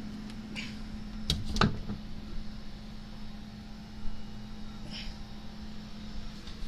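Steady low electrical hum of an open refrigerator, with two quick knocks about a second and a half in and a fainter tick near the end.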